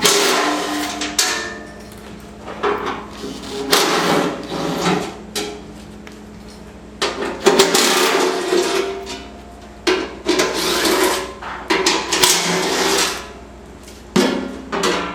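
The metal cover of a weed and brush mower being unfastened and lifted off: irregular clanks, knocks and scrapes, coming in bursts with short pauses between.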